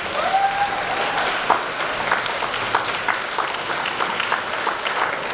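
Audience applauding, dense clapping with a short rising call near the start.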